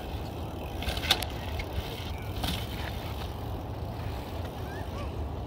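Mountain bike riding over rock: a steady low rumble of tyres and wind, with sharp clacks from the bike about one and two and a half seconds in.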